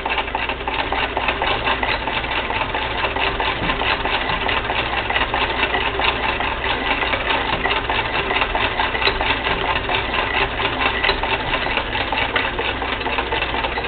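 Singer Spartan hand-crank sewing machine running steadily, stitching through a quilt: a rapid, even mechanical clatter of needle and stitch mechanism.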